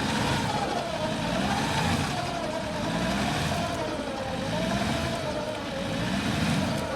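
Off-road 4x4's engine revving repeatedly, its pitch rising and falling about once a second.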